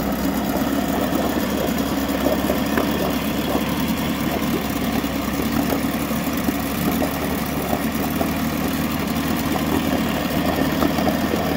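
1959 Mercury Mark 55E two-stroke outboard with a Super Thunderbolt powerhead, freshly started and idling steadily.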